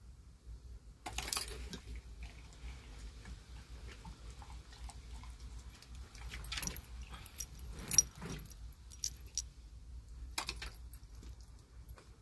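Metallic jingling and clinking in several short bursts, the loudest about eight seconds in, over a faint steady low hum.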